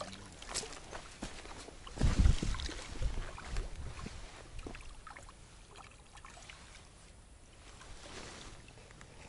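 Faint rustling and handling noises in dry reeds and grass: scattered small clicks, with a louder muffled thump about two seconds in.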